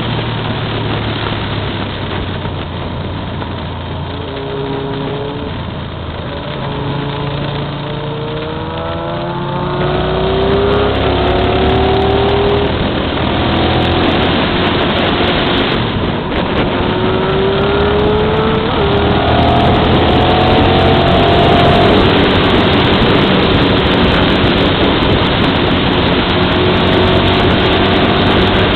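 Motorcycle engine under way, its pitch rising repeatedly as it accelerates and dropping back at each gear change, with wind rush over the microphone growing louder about a third of the way in as speed builds.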